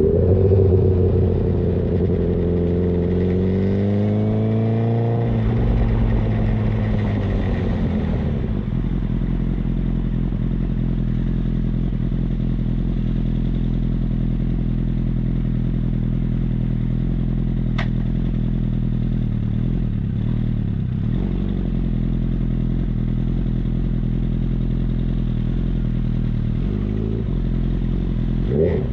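Honda CBR1000RR inline-four with a local aftermarket exhaust, revved gently in the first few seconds and falling back to a steady idle. A single sharp click near the middle.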